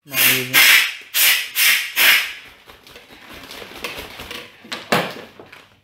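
Loud crinkling of a plastic packet being handled, in a quick series of rustling bursts over the first two seconds, then quieter crackling with one more burst near the end.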